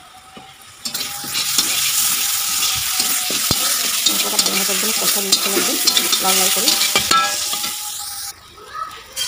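Spice paste of onion, ginger, garlic and green chilli sizzling as it fries in oil in a metal kadai, stirred and scraped round the pan with a metal spatula. The sizzle starts about a second in and cuts off suddenly near the end.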